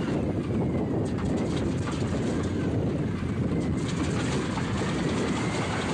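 Boeing B-17's number two engine, a Wright R-1820 Cyclone nine-cylinder radial, running steadily just after being started, a dense rumble. A faint whine wavers up and down in pitch above it.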